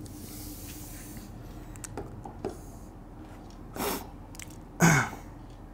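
A quiet pause in a small room: low steady room hum with a few faint clicks, then a short breathy noise about four seconds in and a brief low voiced sound falling in pitch about a second later.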